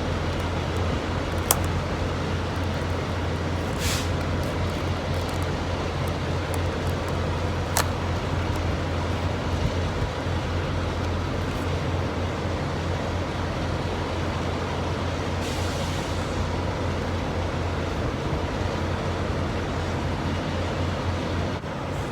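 Steady low hum of an idling vehicle engine, with a few light clicks and taps over it.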